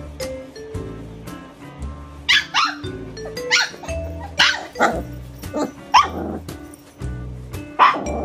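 One-month-old Siberian husky puppies barking: about seven short, high cries from about two seconds in, each falling sharply in pitch, over steady background music.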